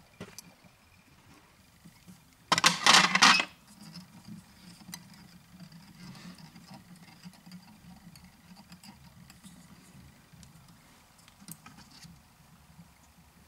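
Handling noise while a fly is tied in a vise: a loud, noisy rustle lasting about a second, a few seconds in, then faint scattered ticks over a low steady hum.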